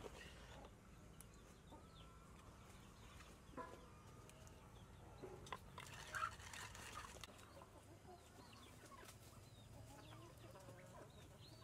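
Faint clucking of chickens, with a few soft knocks of a wooden pestle in a clay mortar.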